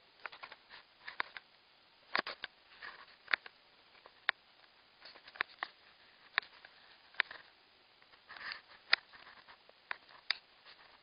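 Irregular sharp clicks, about a dozen, with short rustling bursts between them.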